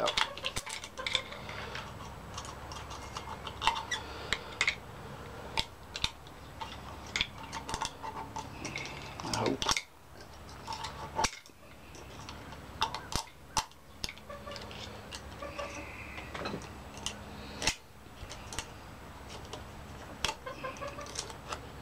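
Small screwdriver clicking and scraping on the metal star-shaped retaining clip inside a hydroboost brake booster's input bore as the clip is bent and pried out: irregular light metallic clicks, over a steady low hum.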